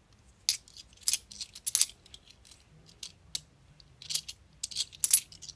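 Bimetallic £2 coins clicking against each other as they are slid one by one off a small stack held in the hand: about ten short, sharp metallic clicks at irregular intervals.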